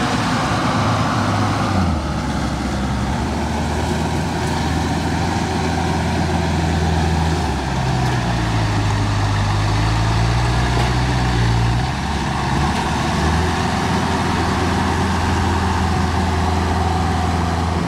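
Engine of a small tracked rice carrier running steadily under load as it crawls through mud with a full load of rice sacks. The engine note shifts pitch a few times, rising about eight seconds in and dropping back a few seconds later.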